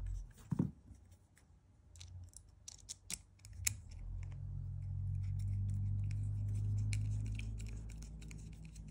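Hex driver turning an M3x10 socket head cap screw into a 3D-printed plastic motor-mount cover: small clicks and scraping as the screw threads in. About halfway through a steady low hum sets in and fades near the end.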